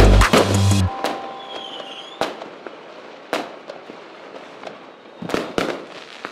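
Fireworks going off: scattered sharp bangs over a fading crackle, with a brief high whistle about two seconds in. Background music with a heavy bass cuts off about a second in.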